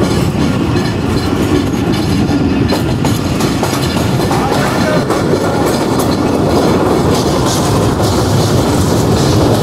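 Passenger express train running, heard from aboard a coach: a steady rumble of the running gear with the wheels clacking over the rail joints.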